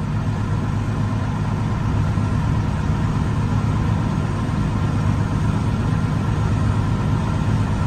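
Peterbilt semi truck's diesel engine idling steadily, with an even low drone.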